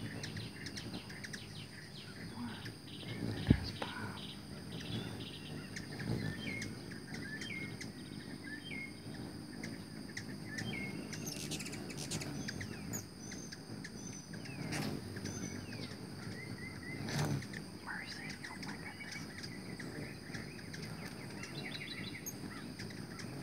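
Hummingbirds chipping and chittering as they jostle around a feeder, with short hooked chirps coming every second or so and a low whir of wings. A steady high insect drone runs underneath, and a single sharp knock sounds about three and a half seconds in.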